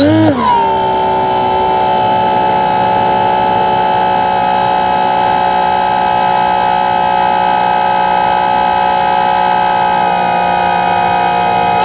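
The single electric motor and propeller of an E-Do Model SkyEye RC plane, heard from its onboard camera, giving a steady, high whine in cruise. Right at the start the pitch rises and falls quickly as the motor briefly speeds up, then it settles at a constant speed.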